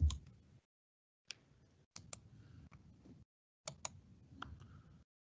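A low bump at the start, then a handful of faint, sharp clicks and taps picked up by an open microphone on a video call. Faint background hiss cuts in and out around them.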